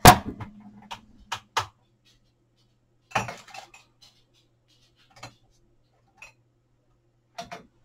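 Hard plastic clicks and knocks of a Stampin' Pad ink pad case being handled and opened on a craft table: a loud click right at the start, a few sharp knocks about three seconds in, then scattered light taps.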